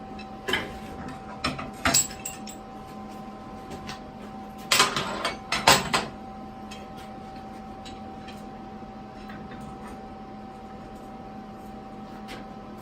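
Metal clanks and knocks as steel parts and clamps are handled and set down while a frame is clamped up, a few single knocks early on and a quick cluster about five seconds in. A steady hum runs underneath.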